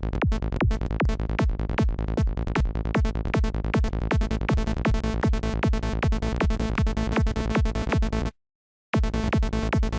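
Psytrance kick and bass loop playing back: a fast, steady electronic beat of pitch-dropping kicks over a rolling bass. It cuts out for about half a second near eight seconds in, then starts again as the loop restarts.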